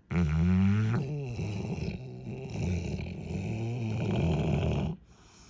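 Cane Corso dog snoring: one long, loud snore of about five seconds that starts suddenly and cuts off sharply near the end.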